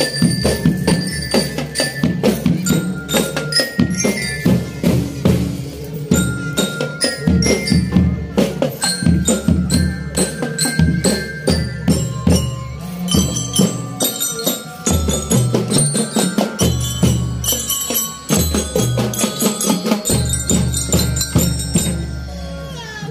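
Marching drum band playing: a bright bell-lyra (glockenspiel) melody over a steady beat of snare and bass drums.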